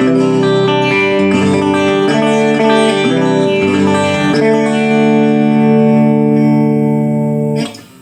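Electric guitar played through an Artist TweedTone20R amplifier, with chords and sustained notes ringing and changing every second or so. The playing stops sharply near the end.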